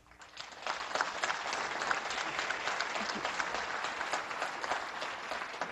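Audience applauding: the clapping swells within the first second and then holds steady.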